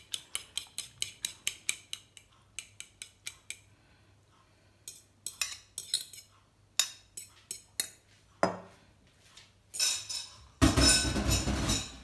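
Fork beating eggs in a ceramic bowl: quick clinks, about five a second, followed by a shorter, faster run. Scattered clinks and scrapes follow as the egg is poured and scraped onto shredded cabbage in a stainless steel bowl. Near the end comes a loud rustling, rubbing noise lasting about a second and a half.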